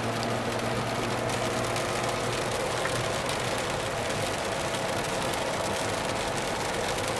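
Steady engine and road noise inside the cabin of a moving 2018 Jeep Wrangler, with no change in speed.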